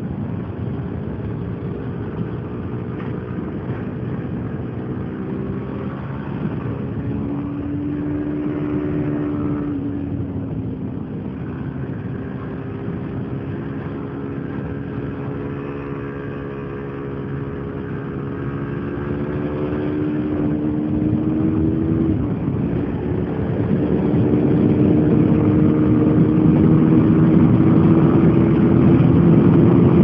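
KTM RC 390's single-cylinder engine running under load on a track lap, heard from on the bike. Its note dips a couple of times, then climbs steadily in pitch and gets louder over the last several seconds as the bike accelerates.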